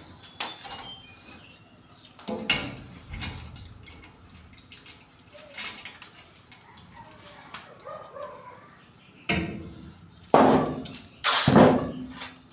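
Irregular knocks, scrapes and thumps of a person shifting about on steel roof trusses, with the loudest bumps bunched together near the end.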